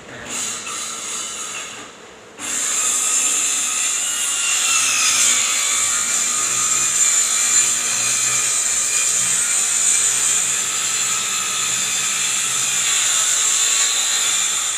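Handheld electric circular saw cutting through a sheet of film-faced phenolic plywood. It runs briefly and quieter at first, drops off, then cuts steadily with a high whine from about two and a half seconds in, its pitch sagging slightly under load a little later.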